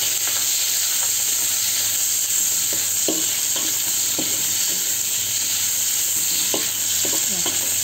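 Shrimp frying in hot oil in a wok: a steady, loud sizzle, with a metal spatula stirring against the wok and giving a few short scraping squeaks.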